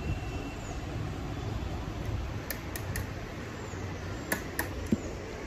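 Steady low room hum with two sets of three faint clicks, a little past the middle and again near the end.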